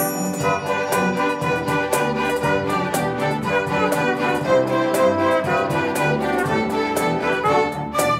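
A small string orchestra with piano playing an upbeat piece: violins carrying the melody over cello and double bass, with a steady beat of short accents.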